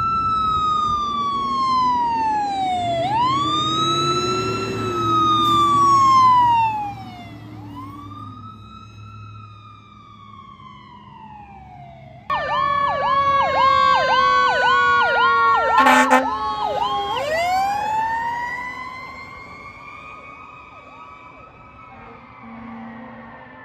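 Ambulance electronic sirens on wail, rising and falling slowly every few seconds and fading away. Partway through, a closer ambulance's fast yelp siren cuts in over a steady horn tone that slides down in pitch, with a sharp crack about two-thirds of the way in. It then switches back to wail and fades as it drives off.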